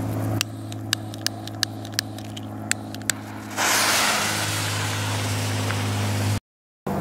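A lit firework sputters with a few sharp crackles, then hisses loudly from about three and a half seconds in until the sound cuts off suddenly near the end. A steady low hum runs underneath.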